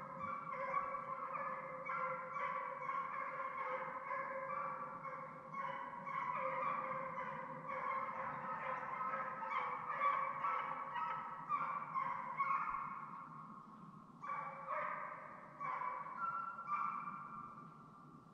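A pack of deer hounds baying and bawling on a running trail, several voices overlapping in a near-continuous chorus that thins out briefly twice.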